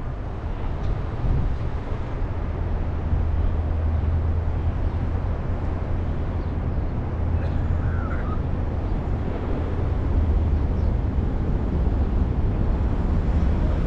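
Car driving slowly in city traffic: a steady low rumble of engine and road noise, picked up by a camera mounted on the outside of the car's hood.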